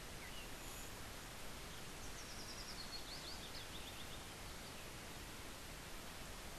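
Steady background hiss from a voice-over microphone with no speech. A faint run of quick, high chirps falls in pitch between about two and four seconds in.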